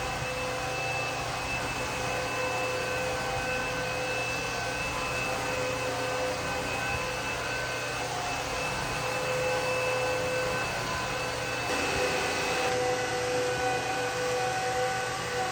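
Aspiron wet-and-dry vacuum mop running steadily: a motor whine over the hiss of suction, shifting slightly about twelve seconds in.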